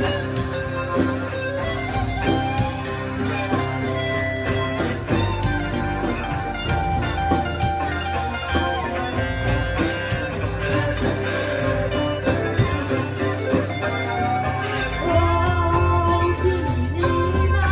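Live rock band playing a song: guitar over bass and drums keeping a steady beat, growing louder about fifteen seconds in.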